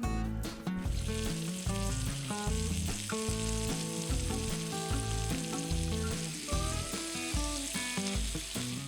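Food sizzling steadily in a hot frying pan over a camp fire, starting about a second in and cutting off near the end, with guitar music underneath.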